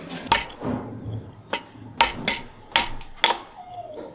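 About six sharp knocks in irregular succession, each with a short metallic ring, as the wooden handle and split-dowel wedge are tapped down onto the tang of a sloyd knife blade clamped upright, the steel blade ringing at each blow.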